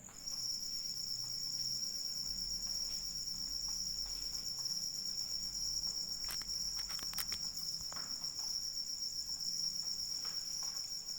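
Crickets trilling steadily in several high, continuous layers, with another cricket joining just after the start, over a faint hiss of light rain. A few sharp ticks, like drips, come about six to seven seconds in.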